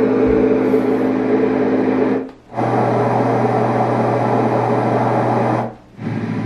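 LectroFan white noise machine playing its synthesized fan sounds: a steady fan whir with a low hum. It dips out briefly about two seconds in and again near the end, and after each dip a different fan sound starts, as the settings are stepped through.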